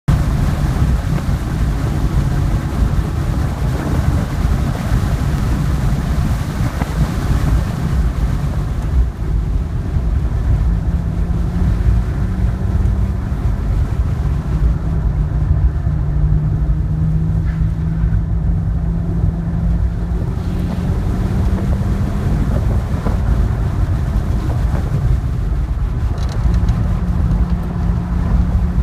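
2010 BMW 3 Series at track speed heard from inside the cabin: a steady engine drone whose pitch shifts a little, over a loud low rumble of road and wind noise.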